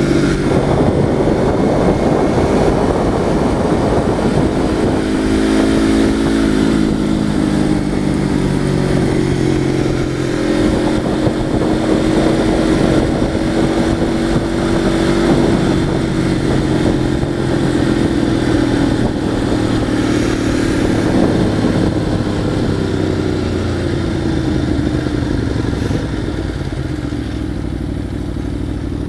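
Motorcycle engine running steadily under way, its pitch rising and falling slowly with the throttle, over a heavy low rumble, heard from a helmet-mounted microphone.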